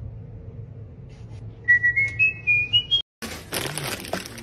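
A door squeaking: a high, thin squeal that climbs in small steps for about a second and a half. After a brief break it is followed by the rustle of a plastic bag being handled.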